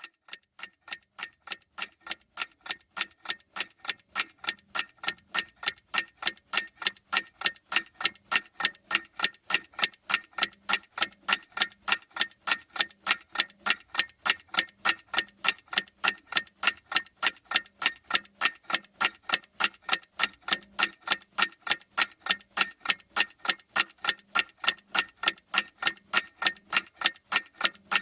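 Clock tick-tock sound effect for a countdown timer: a fast, even run of sharp ticks, a few per second. It fades in over the first several seconds and then holds steady.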